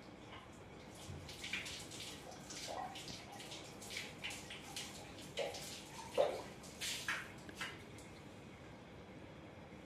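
Water splashing in short irregular bursts in a small bathroom, as a person washes with water.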